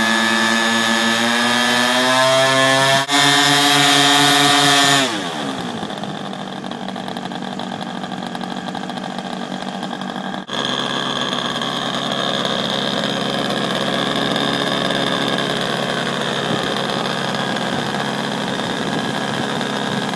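Small engines of a twin-engine radio-controlled Canadair model aircraft running with propellers turning: revved higher over the first few seconds, then throttled back about five seconds in to a steady idle.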